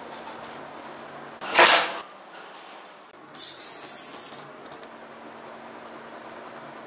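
Hands-on assembly noise: a loud, brief scraping burst about a second and a half in, then a plastic cable tie zipped tight through its ratchet for about a second, ending in a couple of clicks.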